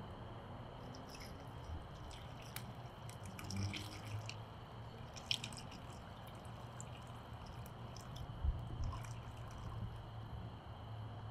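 Small wood campfire crackling, with sparse sharp clicks and pops, and light taps from a metal camp cup being handled, over a faint steady low hum.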